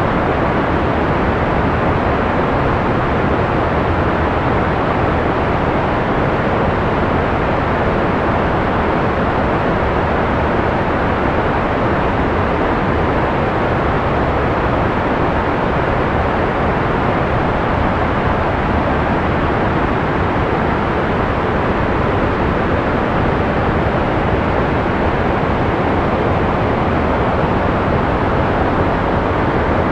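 Steady analog white noise from a sleep-aid recording: an unchanging, dull hiss with no tones or rhythm, weighted toward the lows and mids and falling away in the highs.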